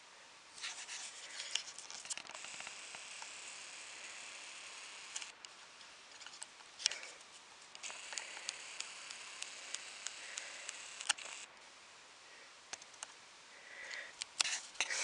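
Faint whir of a video camera's zoom lens motor in two long stretches, with small sharp clicks scattered through and around them.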